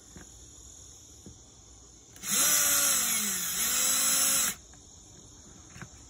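Ridgid cordless drill drilling a pilot hole through a doorbell mount into exterior siding. The motor runs for about two seconds, starting about two seconds in: its pitch rises as it spins up, sags briefly as the bit bites, holds steady, then stops suddenly.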